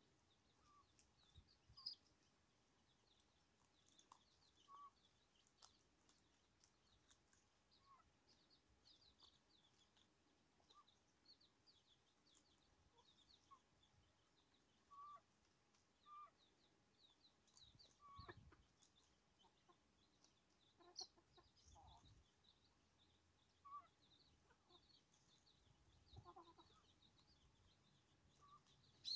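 Faint hen clucking softly now and then while her chicks peep, short high calls scattered all through.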